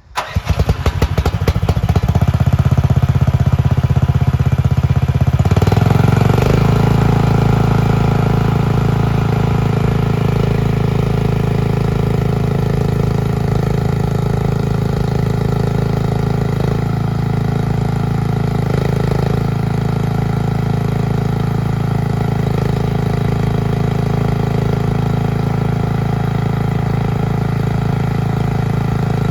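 Machpro MP S300 mini skid steer's engine cranking and catching, then running steadily. Its note changes about five seconds in, after which it holds a steady idle.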